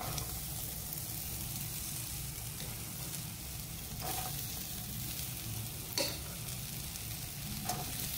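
Elephant foot yam pieces and chopped onion frying in hot oil in a pan, a steady sizzle, broken by three sharp stirring strokes against the pan, the loudest about six seconds in.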